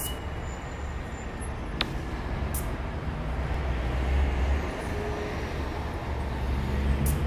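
A steady, dense rumbling noise, heaviest in the deep bass, with a single sharp click about two seconds in.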